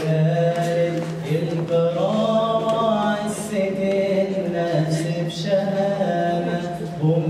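A young man chanting a Quran recitation solo in the melodic tajweed style, drawing out long held, ornamented notes, with a short breath between phrases before the end.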